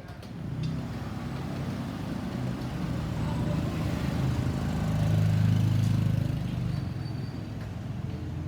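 A road vehicle passing close by: engine rumble and tyre noise build up, are loudest about five to six seconds in, then fade as it moves away.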